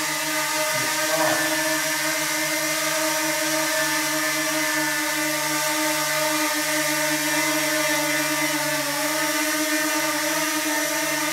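DJI Mini 2 quadcopter drone hovering, its four propellers giving a steady high whirring buzz that dips slightly in pitch about nine seconds in as the motors change speed.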